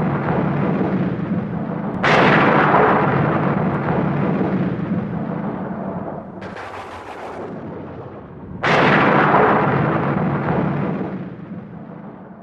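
Thunder claps: sudden loud cracks about two seconds in and again near nine seconds, each rolling away slowly over several seconds, with a shorter hissing crack around six seconds.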